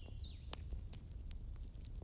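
Wood fire in a fireplace crackling, with scattered sharp pops over a low steady rumble. A faint high whistle falls in pitch near the start.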